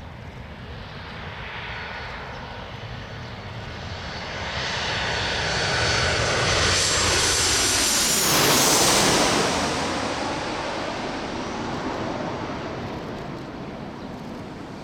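Jet airliner passing low overhead on its landing approach. Its engine rumble and whine build up, peak about eight to nine seconds in as the whine drops in pitch while it passes, then fade away.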